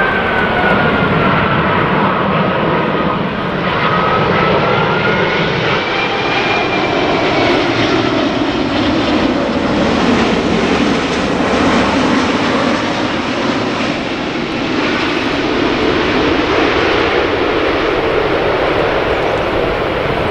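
Airbus A380-841 airliner on final approach, its four Rolls-Royce Trent 900 turbofans running with a loud steady jet roar as it passes low overhead. A whining engine tone sits in the roar, gliding down and then back up in pitch over the first several seconds.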